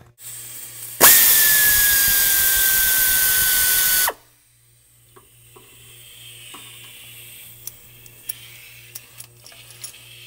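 A power ratchet spins for about three seconds, loosening a bolt on the oil cooler line mount. It gives a steady whine that sinks slightly in pitch over a hiss, then stops sharply. Faint clicks and small metal knocks follow.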